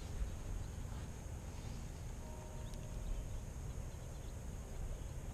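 Quiet outdoor background: a low steady rumble, with a few faint short tones a little over two seconds in.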